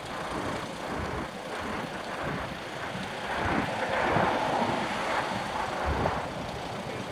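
Irregular rumbling street and traffic noise, with wind buffeting the microphone as it moves along the street.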